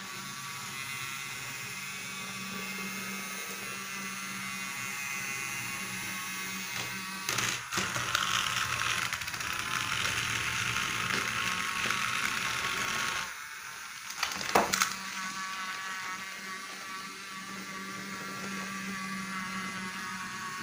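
Small electric motors and gears of battery-powered BRIO toy trains whirring steadily as they roll along wooden track. The whir grows louder for a few seconds in the middle and stops briefly, with a few sharp plastic-and-wood clicks and knocks around eight and fifteen seconds in.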